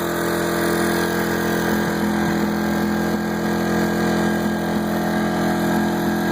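Smarter Tools 2000-watt inverter generator running at a steady, unchanging engine speed while charging a battery from its DC output.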